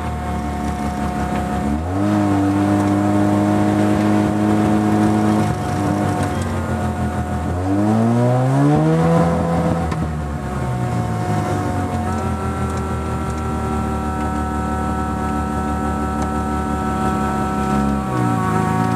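Mazda RX-7 FC's 13B rotary engine heard from inside the cabin, on and off the throttle: the revs jump up about two seconds in, fall away, climb in a long rising sweep near the middle, drop back, then hold steady with a short dip near the end.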